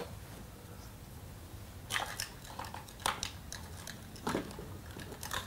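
Handling noise as the car cover's air-pump hose fittings are worked on: about five short crinkling clicks, the first about two seconds in.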